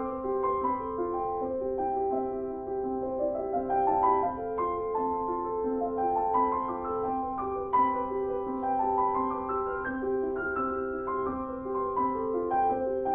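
Background piano music: a gentle melody over repeated low notes, with quick rising runs of notes about four seconds in and again near ten seconds.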